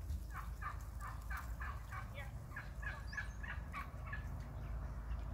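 Turkeys calling in a rapid run of short, falling notes, about four a second, stopping about four seconds in.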